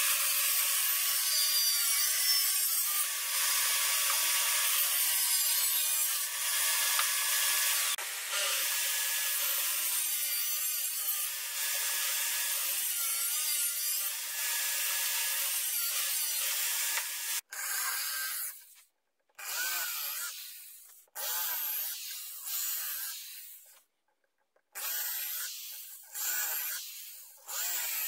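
Power tools working a plywood box: about seventeen seconds of continuous tool noise, then a string of short bursts of a few seconds each with abrupt breaks between them, the last of them a cordless drill running into the plywood.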